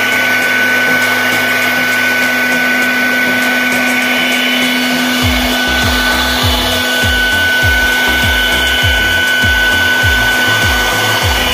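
CNC router spindle running with a steady high whine as its bit cuts through aluminium composite (ACP) sheet. About five seconds in, a music beat with a low thud about twice a second comes in under it.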